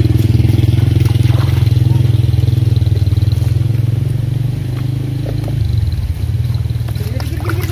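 A small engine running steadily close by, with a low, fast, even pulse that starts abruptly and settles a little lower about six seconds in.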